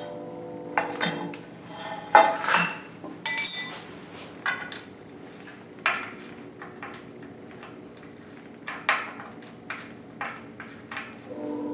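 Hand tools and loose metal parts clinking and knocking during an engine teardown, a string of separate sharp clicks with one loud ringing metal clank about three seconds in.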